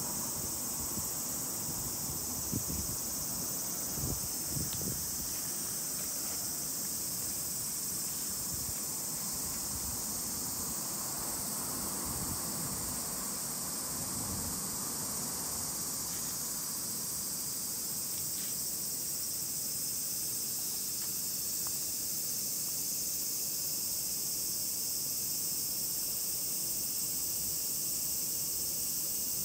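A steady, high-pitched drone of a summer insect chorus, with a few soft low thumps in the first few seconds.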